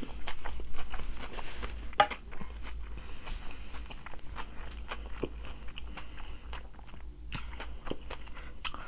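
A person chewing and biting crunchy food, with many small crisp crunches and one sharper crunch about two seconds in.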